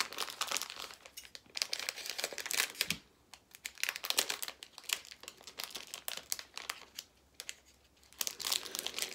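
Plastic wrapper of a blind-bag collectible pencil-topper pack being crinkled and torn open by hand, in irregular crackling spurts with short pauses.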